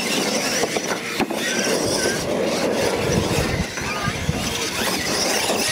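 Radio-controlled monster trucks racing over gravel: a high motor whine that comes and goes over the rumble and crunch of the tyres, strongest about three seconds in.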